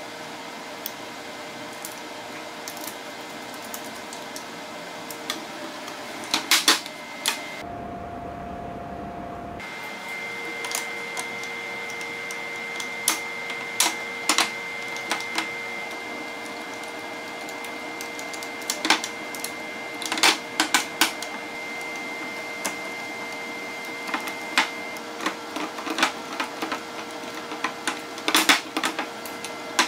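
Walnut shelf parts and metal pins or bolts clicking and knocking as a folding shelf is put together by hand, in irregular small clicks, over a steady faint hum.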